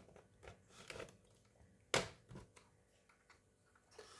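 Thin pry pick sliding along the seam of a plastic laptop case to open it: scattered small clicks and scrapes, with one sharp click about two seconds in.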